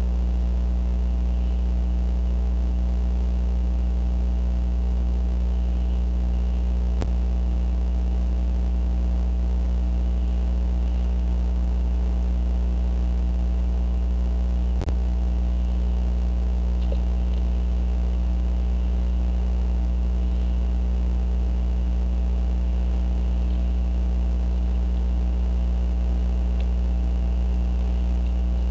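Steady electrical mains hum in a nest-cam's audio feed, with a faint high hiss band and two brief clicks, about 7 and 15 seconds in.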